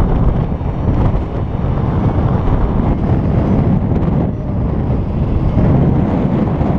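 Wind rushing over the microphone of a pilot-mounted camera in paraglider flight, a loud, steady, deep rush of airflow.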